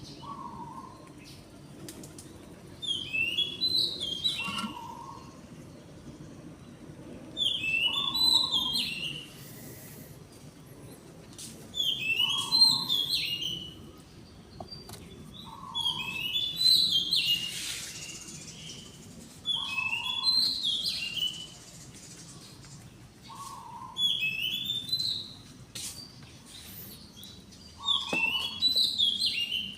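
A songbird singing the same short phrase over and over, about every four seconds: a short low note, then a quick run of high, chirping notes.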